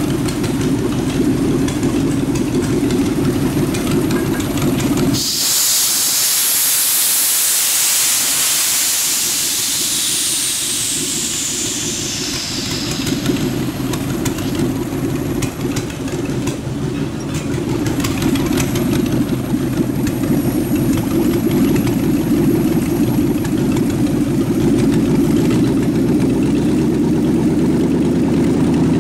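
Truck engine idling, driving a York AC compressor converted to pump air. About five seconds in, a loud hiss of compressed air bursts out through the air tank's ball valve and fades away over several seconds as the tank empties, then only the idle remains.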